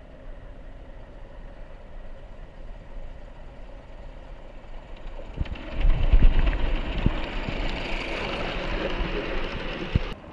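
Live-steam G-gauge garden-railway locomotive running through a wooden covered bridge toward the microphone: a rumble of wheels on track with scattered clicks and a steam hiss. It grows louder about halfway through and stops abruptly near the end.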